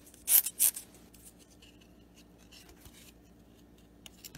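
Plastic wrapper of a baseball card pack being peeled open by hand: two sharp crinkles about a third and two-thirds of a second in, then faint rustling and a few small ticks near the end.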